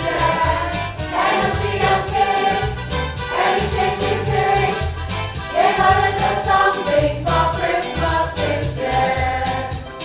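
Choir singing over a keyboard backing with a steady repeating bass line.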